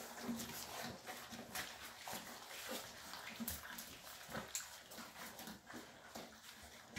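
A litter of Llewellin setter puppies eating a weaning meal together from one steel pan: busy lapping and chewing, with many small clicks and knocks.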